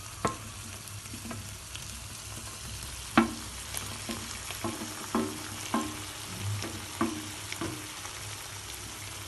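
Chicken pieces frying in a pan of chili sauce with a steady sizzle while a spatula stirs them, knocking and scraping against the pan at irregular intervals, with one louder knock about three seconds in.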